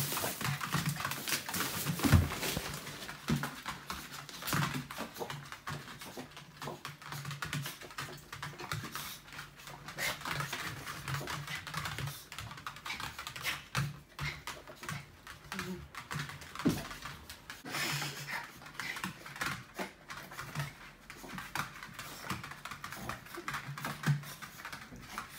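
Small dogs' claws clicking and skittering rapidly and irregularly on a laminate floor as excited long-haired terriers jump and scramble around a crouching person.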